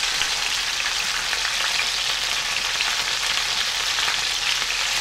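Chicken pieces frying in hot oil in a pan, a steady sizzle with fine crackling as they brown.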